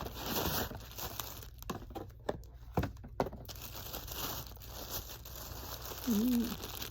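Packaging crinkling and rustling as it is unwrapped by hand, with a few sharp clicks about three seconds in.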